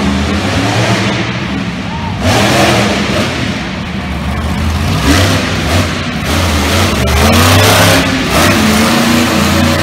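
Monster truck engine revving hard, with a steady low drone and several loud surges of throttle as the truck accelerates and jumps.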